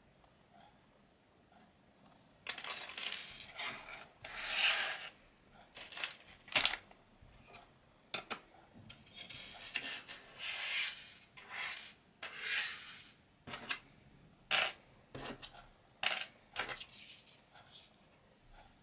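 Small electronic kit parts being handled and laid out on a tabletop: irregular rustling with several sharp clicks as pieces are set down.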